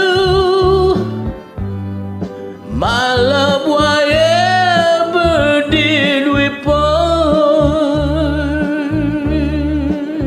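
Karaoke singing of a slow ballad: a voice holds long notes with a wavering vibrato over a backing track with bass. One held note ends about a second in, and a second long note begins about three seconds in and carries on, lifting in pitch briefly before settling lower.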